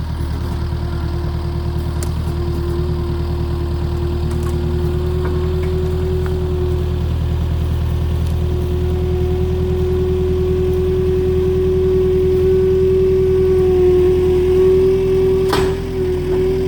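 An engine running steadily, with a strong whine that creeps slightly up in pitch, and a single sharp knock near the end.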